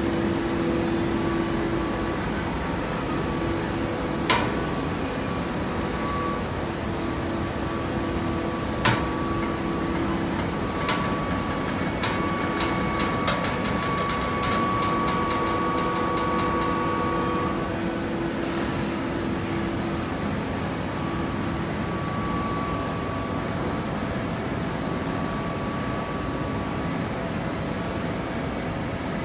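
Hydraulic hay baler running: a steady hum from the motor and pump, with a few sharp clanks and a quick run of clicks about halfway through.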